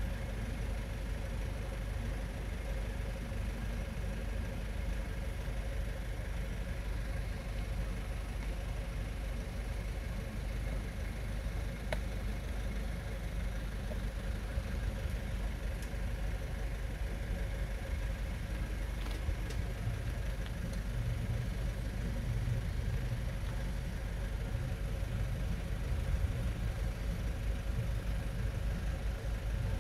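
An engine idling steadily: a low, even hum that neither rises nor falls.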